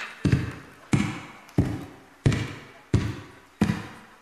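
A slow, steady beat of heavy percussive thuds, about three every two seconds, each dying away within half a second.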